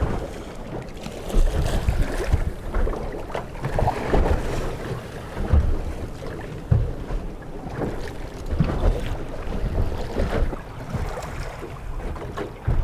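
Wind buffeting the microphone on a small boat under way in a choppy sea, with water rushing and slapping against the hull in uneven gusts and thumps.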